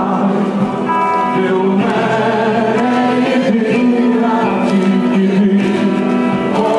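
Many voices singing together in long held notes.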